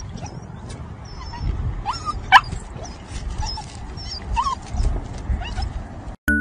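A puppy whining and yipping in short, high, rising squeaks while it begs for a treat held above it, with one sharper, louder squeal about two seconds in. Chiming music starts just at the end.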